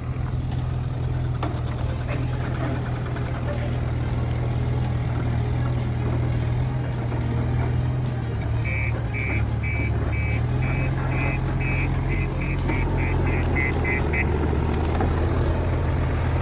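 JCB 530-110 telehandler's diesel engine running steadily under work, its note shifting about ten seconds in. Just past halfway, an electronic warning beeper gives a run of short high beeps that quicken from about two to four a second, lasting about five seconds.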